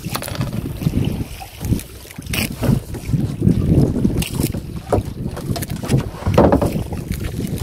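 Wind buffeting the microphone aboard a small wooden outrigger boat at sea, with a few sharp knocks as someone shifts about in the hull.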